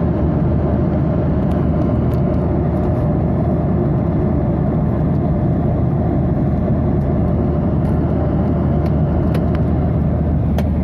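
Steady cabin roar of a Boeing 737-800 in cruise, heard inside the cabin at a window seat over the wing: rushing airflow mixed with the hum of its CFM56-7 engines.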